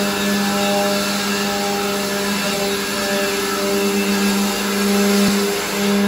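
Electric handheld sanders running on wooden door panels, a steady motor hum over the grit's hiss that dips briefly twice as the sanders are worked.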